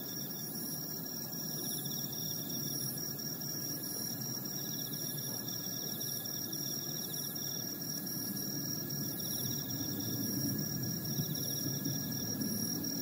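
Distant jet airliner on approach, a low steady rumble that slowly grows louder. Insects chirp steadily and high-pitched over it.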